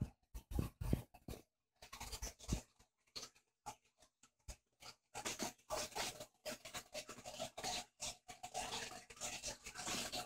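Dog burying a chew under a fleece blanket, pushing the fabric with its head: irregular rustling and scuffing of fleece on carpet, sparse at first and busier from about halfway through.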